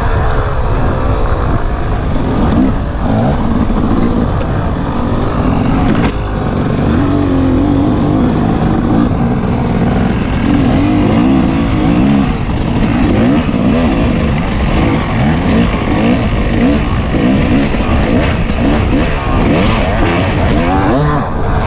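Dirt bike engine running under the rider, its pitch rising and falling again and again as the throttle is opened and closed and the gears change, over a steady low rumble of wind on the microphone.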